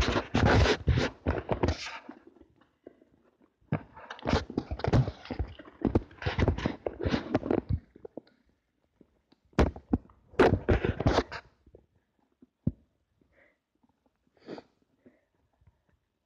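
Phone microphone rustling and buffeting as the phone is handled close up, in three rough bursts: about two seconds at the start, about four seconds from four seconds in, and a shorter burst near ten seconds, then only faint clicks.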